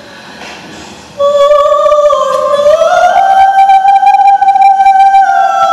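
A single high voice singing a slow, held melody, coming in about a second in after a quiet moment and stepping up in pitch to a long held note.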